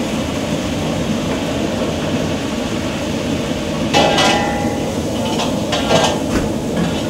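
Commercial kitchen noise: a steady low rumble under a cooking pot, with metal utensils clanking against metal about four seconds in and again around six seconds.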